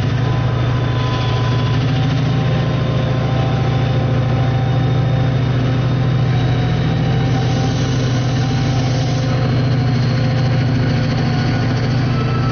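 Diesel train engine idling with a steady, deep drone.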